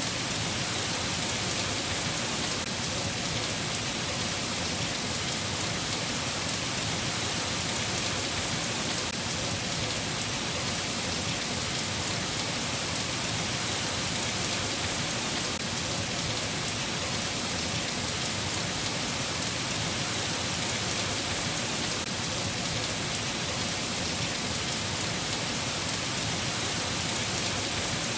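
Steady rain falling, an even, unbroken hiss of many drops, with no thunder.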